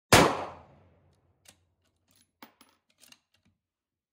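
A single rifle shot from a Ruger M77 Gunsite Scout in 5.56 firing .223 Remington ammunition, a sharp report that dies away over about a second. A few faint clicks follow over the next couple of seconds.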